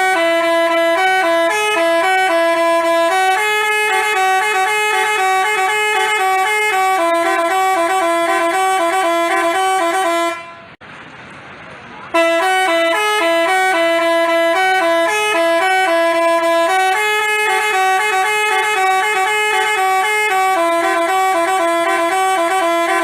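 Basuri-type telolet bus horn playing a multi-note melody in quick stepping notes. It stops about ten seconds in and plays the same tune again after a short break.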